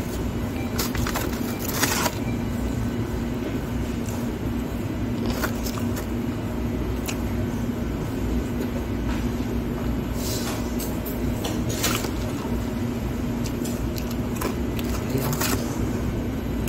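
Steady background hum and low rumble of a fast-food dining room, with a few short clicks and rustles now and then.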